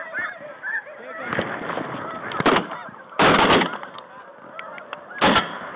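A large flock of snow geese calling continuously in high, yelping honks, broken by three loud shotgun blasts: two about a second apart near the middle and a third about two seconds later.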